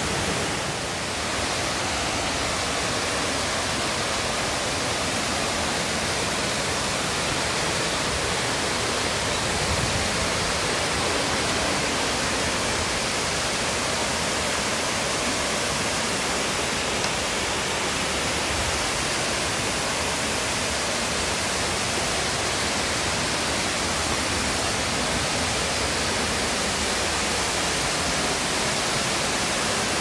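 Four-tier, 40 m waterfall pouring into a rocky pool: a steady, even rush of falling water.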